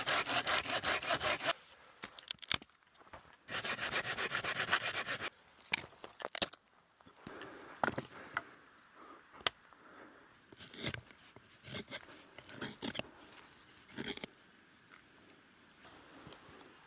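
Hand saw cutting through wood: two runs of quick back-and-forth strokes, followed by scattered cracks and knocks of wood being handled.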